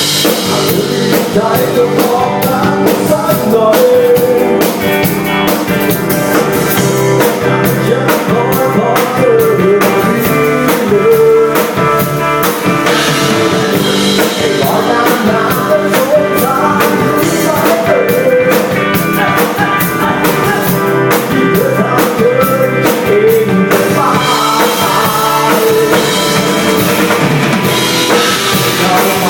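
Live rock band playing: drum kit with steady cymbal strokes, electric guitar and a singing voice.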